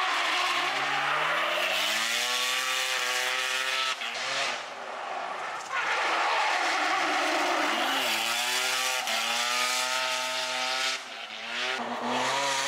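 FD Mazda RX-7 drift car's engine revving hard under throttle while its tyres squeal through a drift. The revs climb, drop off briefly about four seconds in and again near the end, then pick back up.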